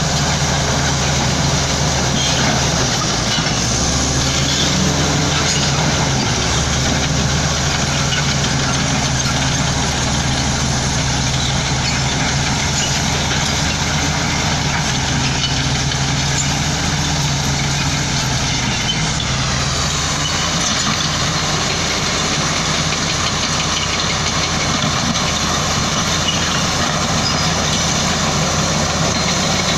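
Heavy diesel construction machinery running steadily, with a shift in engine pitch about two-thirds of the way through.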